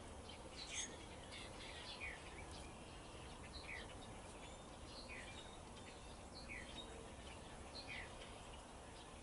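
Quiet background hiss with a bird giving a short falling chirp, repeated about every second and a half.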